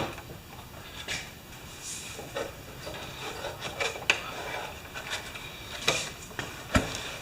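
Scattered clicks and knocks of hands working on a lawn mower's loose bracket and frame, with one heavier thump near the end.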